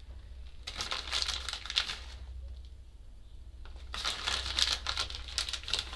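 Plastic crinkling in two spells of about a second and a half each, from a plastic packet of grated cheese being handled and shaken out over bread.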